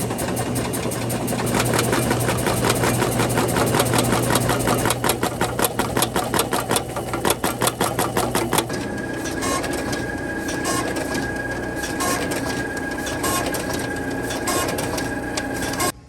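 Ballot tabulation machinery running. First a fast, dense mechanical clatter; about 9 seconds in it changes to a steadier machine hum with a steady high tone, a short beep roughly every second and a quarter and scattered clicks, cutting off abruptly near the end.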